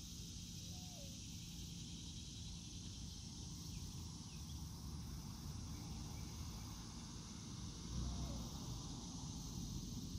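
Rural outdoor ambience: a steady high insect drone with a low wind rumble on the microphone, swelling briefly near the end, and a couple of short faint bird chirps.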